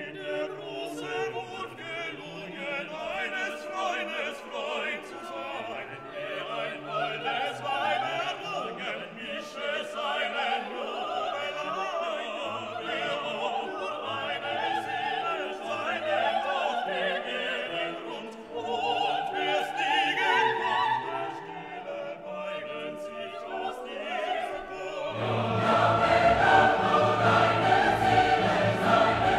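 Background music: classical operatic singing with choir and orchestra, swelling fuller and louder near the end.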